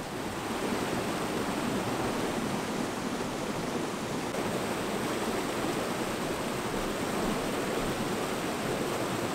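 River water rushing through a gorge: a steady, unbroken rush.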